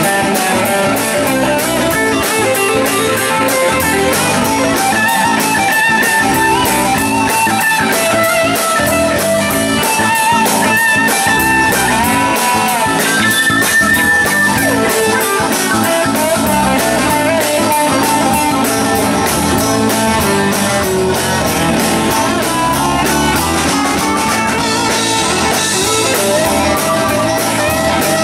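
Live rock band playing an instrumental passage: electric guitar lead with bent notes over bass guitar and drum kit, keeping a steady beat.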